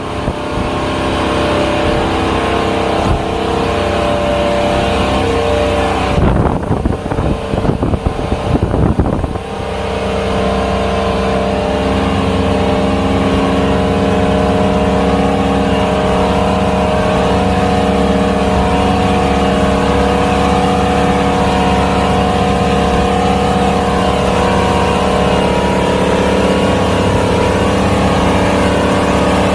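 Maxum boat's engine running under way at a steady speed. About six seconds in, a few seconds of rough, uneven rushing noise cover it, then the engine carries on evenly.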